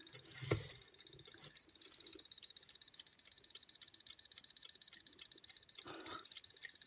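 Luna P electronic kitchen timer's alarm beeping: a rapid, steady run of high-pitched electronic beeps, several a second. A soft handling knock comes about half a second in.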